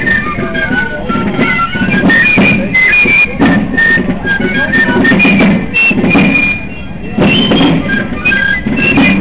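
Fasnacht march music: piccolos playing a quick high melody over drums keeping a steady beat.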